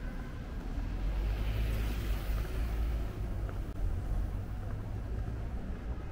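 A vehicle passing on the street, its noise swelling and fading over about two seconds, over a steady low rumble of city traffic.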